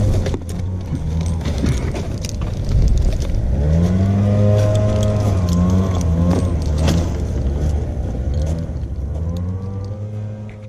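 An engine running steadily, its pitch rising and falling about four seconds in, with scattered sharp knocks over it.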